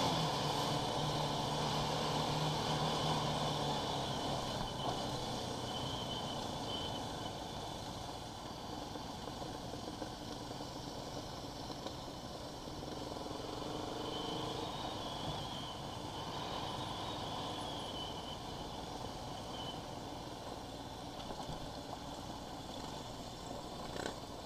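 Quad bike (ATV) engine running as it rides a loose gravel track, with tyres crunching over the stones. The engine note holds steady for the first few seconds, then eases off and stays lower.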